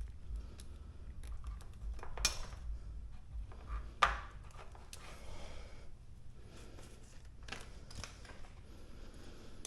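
Tools and bike parts being handled during repair work: scattered small clicks and rubbing, with two sharper clacks about two and four seconds in.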